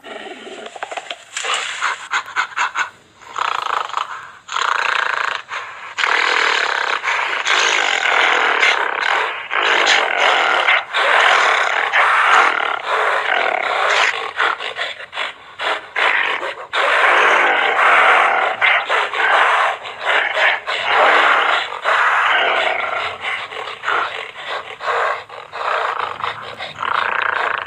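Gorilla vocalizing: a long run of rough, noisy calls with short breaks between them.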